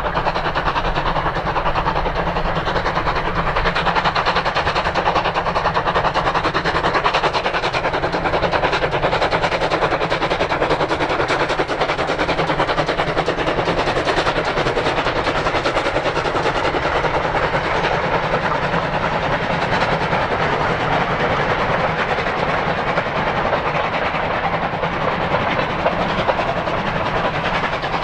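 Great Western 57xx pannier tank steam locomotive working a goods train of hopper wagons past, its exhaust and wagon noise mixed into a loud, steady rushing noise.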